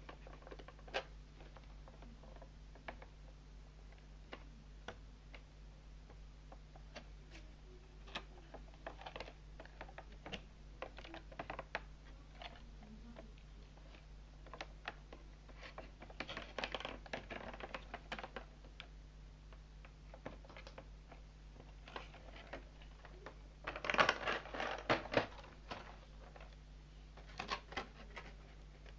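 Clear plastic blister packaging being handled: scattered clicks and crinkles, with two louder spells of crinkling, one past the middle and a longer one about four-fifths through. A steady low electrical hum runs underneath.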